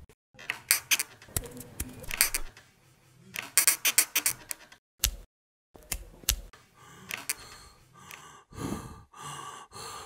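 A run of short designed foley sound effects in quick succession: sharp clicks and cracks, several in tight clusters, with a few longer rustling sounds near the end.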